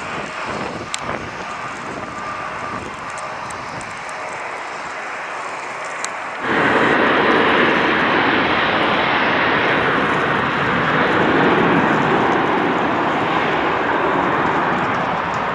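Jet airliner engine noise on landing approach: first a Boeing 757 low over the runway, then, after a sudden cut about six seconds in, louder steady engine noise from a Boeing 737-900ER with its CFM56 turbofans on final approach.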